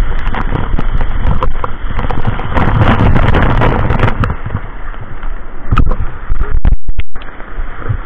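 Waterfall water pouring and spattering directly onto a handheld camera, a loud, dense rush of falling water; near the end it breaks up in a few short gaps.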